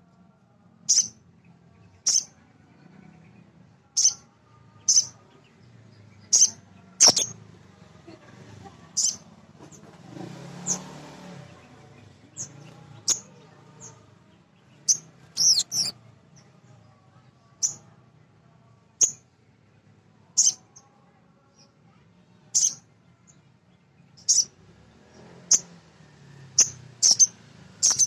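Male spiderhunter (sogon) calling with short, sharp, high chirps about once a second, now and then two in quick succession.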